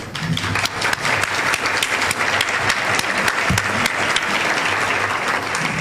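Audience applauding: many hands clapping steadily in a dense patter, easing off near the end.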